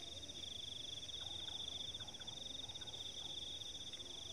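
Night insects trilling in a steady, high chorus of fast, even pulses, with a fainter second pitch above it.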